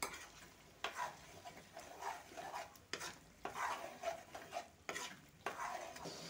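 Metal spatula stirring and scraping chicken hearts in oil and spices around a metal kadai, in a quick run of short strokes, with the mixture frying and sizzling.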